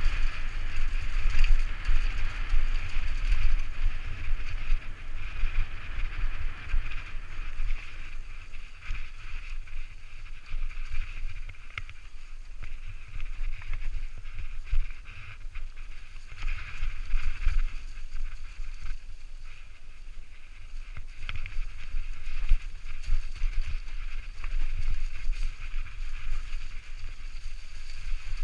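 Propain Tyee enduro mountain bike riding fast downhill over a leaf-covered trail, heard from a helmet-mounted camera: wind buffets the microphone in a gusty rumble while the tyres hiss through dry leaves and the bike clatters over bumps in short knocks.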